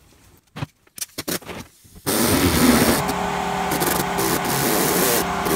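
A few light handling knocks, then about two seconds in a small handheld rotary tool starts and runs steadily, its bit cutting into a clear plastic door-card panel.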